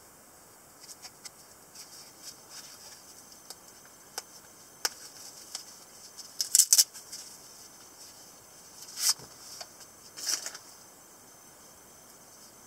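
Handling of a fixed-blade knife in a black nylon sheath: light rustles and clicks, then a quick run of loud clicks about six and a half seconds in as the retention strap's snap is pulled open. Two short, strong scraping swishes follow as the blade is drawn from the sheath.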